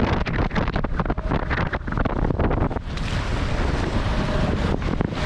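Wind buffeting the microphone over water rushing past the hulls of a Tornado catamaran sailing fast upwind. Choppy, with many short slaps for about the first three seconds, then a steadier hiss.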